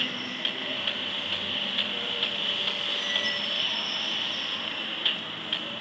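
Steady running hum of an HO-scale model railway layout, with a light click repeating about twice a second.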